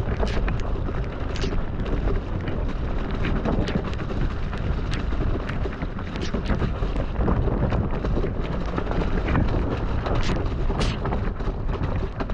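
Mountain bike riding fast down a rough, wet dirt trail: a continuous rumble of tyres on mud and wind buffeting the microphone, with frequent sharp knocks and clatters as the bike hits bumps and roots.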